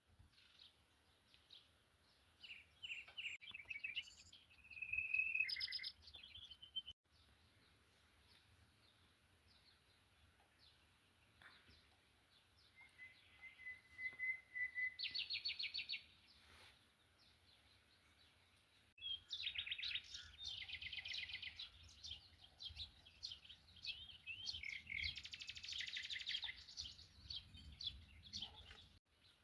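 Small songbirds singing in short chirping phrases and rapid trills, separated by gaps of several seconds of quiet, with a longer, busier stretch of song in the last third.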